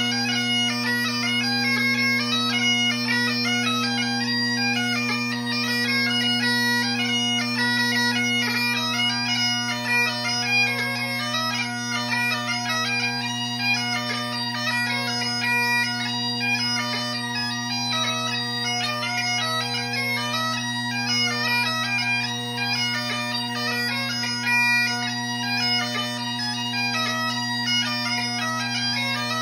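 Great Highland bagpipe playing a jig: steady drones underneath a quick-moving chanter melody.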